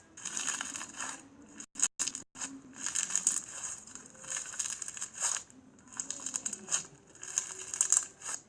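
Slime being squeezed and pressed, giving repeated bursts of crackling and popping with short pauses between squeezes.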